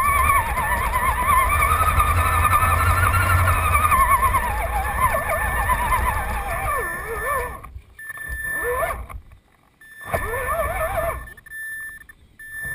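An electric RC scale crawler's motor and gear drivetrain whining, the pitch wavering up and down with the throttle over a low rumble. A thin steady high tone runs alongside. Near the end it cuts out briefly two or three times as the throttle is let off.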